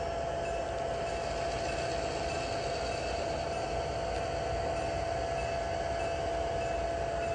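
HO-scale model train running: a steady engine-like hum with one constant tone held throughout.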